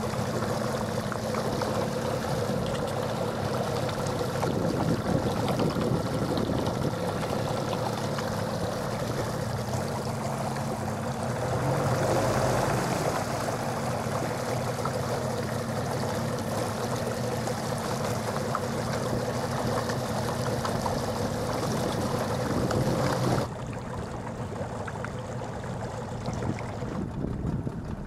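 Outboard motor on an inflatable PVC boat running steadily, with water washing past the hull. About 23 seconds in it is throttled back and drops to a quieter, lower idle.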